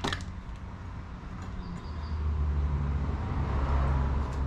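A low, steady engine-like hum that swells from about two seconds in.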